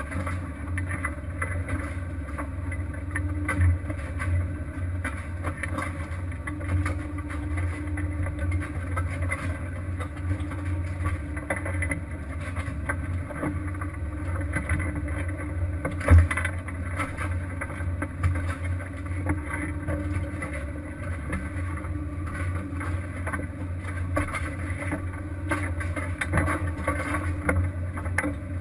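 Fishing boat's engine running steadily, with a single loud knock about halfway through.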